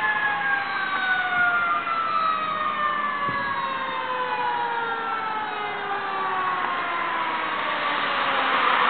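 Fire engine siren sounding one long, slow fall in pitch as the truck approaches. The roar of the approaching truck grows louder near the end.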